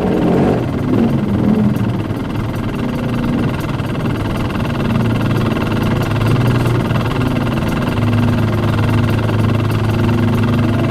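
Background music with synthesizer tones: notes held for a second or more that step between pitches.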